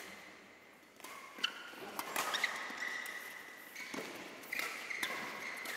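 Badminton rally: rackets striking a shuttlecock with sharp, short smacks every second or so, ringing in a large hall, with thuds of players' feet on the court.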